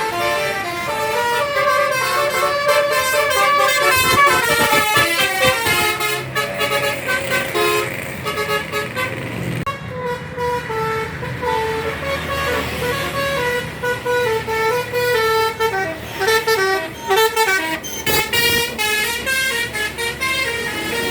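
Tour bus telolet horns (Basuri multi-tone horns) playing quick stepping melodies, one run after another. In the later part they sound in short, rapid toots, over the low running of bus engines.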